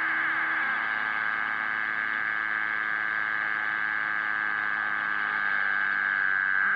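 A steady, humming interference signal received on a CB radio and heard through its speaker: an even buzzy band with faint low steady tones beneath, without breaks.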